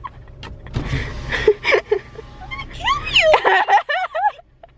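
A woman laughing: a run of rising-and-falling giggles about three seconds in, after a low rumble and a few voice sounds.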